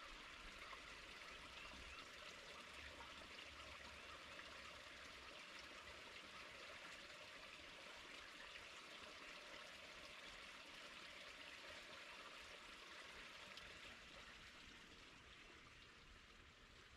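A brook's water trickling and flowing steadily and faintly, growing fainter near the end.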